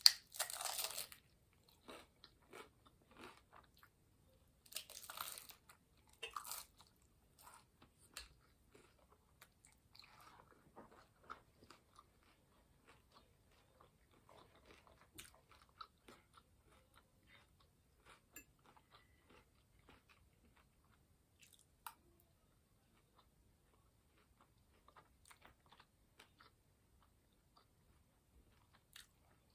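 Biting into and chewing a taco close to the microphone: loud bites at the start and about five seconds in, then quieter chewing with small scattered clicks.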